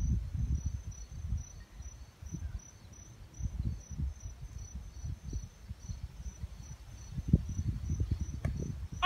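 Insects chirping steadily, short high-pitched pulses about three times a second, over a low rumble of wind on the microphone. A couple of dull thumps near the end.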